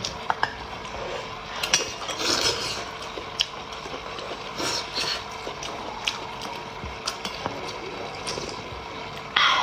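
Eating sounds from a plastic hot pot tub: a plastic spoon and chopsticks clicking and scraping against the tub, with a few short slurps of broth and a louder slurp near the end.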